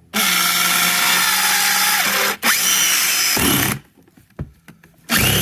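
A power drill driving the water pump drain bolt back in. It runs in steady spells: one of about two seconds, a second of just over a second, then a short pause before it starts again near the end.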